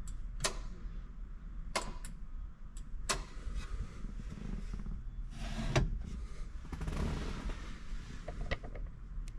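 Floor-mounted headlight dimmer switch clicking as it is pressed to toggle between high and low beam, four sharp clicks spaced a second or more apart over a steady low rumble.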